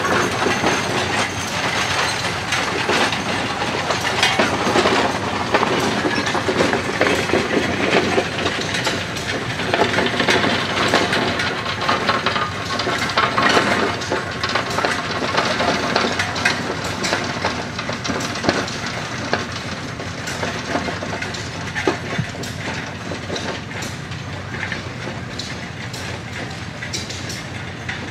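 Horse-drawn road grader clattering and rattling over a dirt road, its steel frame, wheels and chains clanking as the blade scrapes the ground. It grows gradually fainter in the second half as it moves away.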